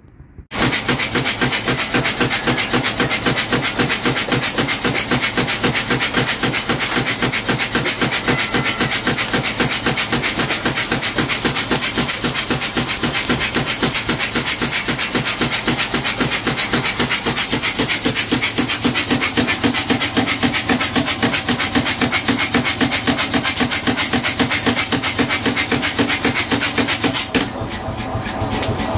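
Mechanical power hammer running, its ram striking in a fast, even rhythm; near the end the blows stop and only its motor runs on.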